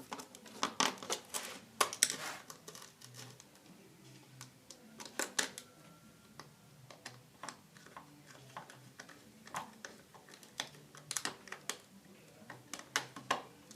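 Irregular clicks and taps of electrical wires being handled and fastened into terminal connectors, coming in small clusters a few seconds apart.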